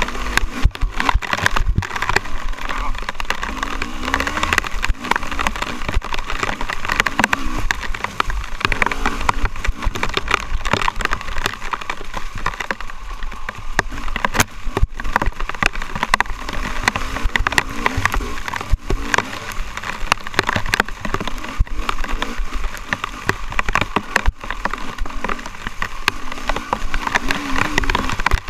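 Off-road motorcycle engine revving up and down as the bike is ridden along a rough trail, with frequent sharp knocks and rattles from the bike over roots and rocks.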